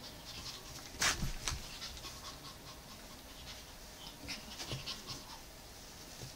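Chihuahua and kitten play-fighting: the dog panting amid quick scuffles and paw taps, with a sharp knock about a second in.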